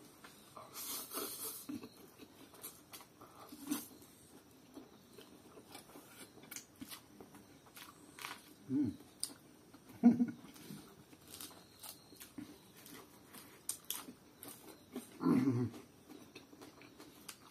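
Close-up eating sounds: spicy instant noodles slurped about a second in, then scattered chewing and mouth smacks, with a few louder short sounds near the middle and near the end.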